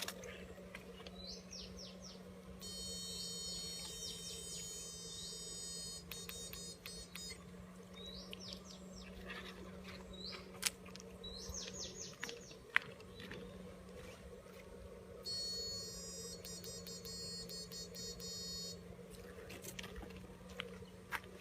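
A bird chirping in short rapid series over a steady low hum. A high, thin electronic whine comes in twice, for a few seconds each time.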